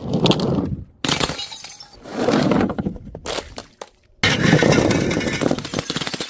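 Glass bottles smashing, three times: each a sudden crash followed by a second or two of shattering glass that dies away.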